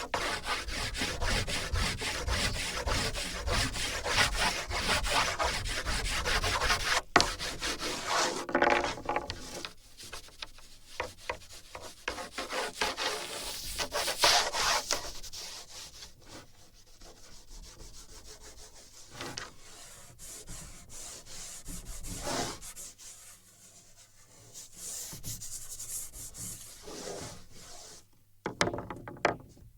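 Drawing strokes rubbing and scraping across a wooden drawing board, picked up through sensors fixed to the board. Rapid, dense strokes for the first third, then sparser, quieter strokes with a few louder flurries.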